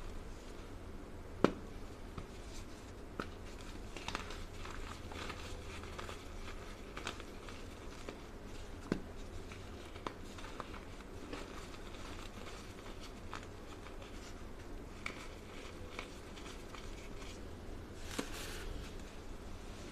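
Dry, crumbly grey lumps crushed between the fingers over a bed of fine powder: scattered soft crackles and crunches with a few sharper snaps. Near the end comes a longer dusty swish as the hands press and sweep through the powder. A low steady hum runs underneath.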